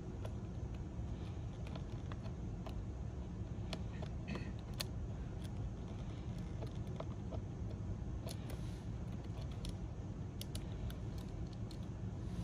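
Scattered light clicks and taps as a plastic spudger pries at the ribbon-cable connectors inside a Lenovo ThinkPad X1 Carbon Gen 9, over a steady low hum. The clicks come in small clusters and are thickest about eight to eleven seconds in.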